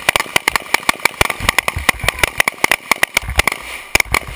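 Rapid gunfire from several shooters firing rifles and pistols together, with many sharp, overlapping shots a second and no pause.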